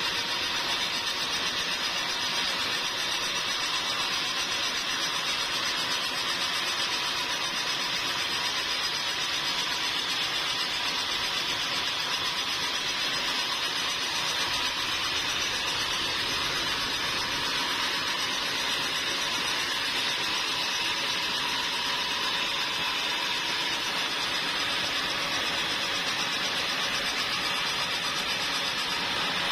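Sawmill machinery running steadily, a high-pitched, even noise with a faint steady whine that does not change.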